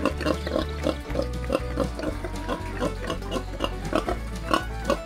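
Pig grunting over background music with a steady beat and bass line.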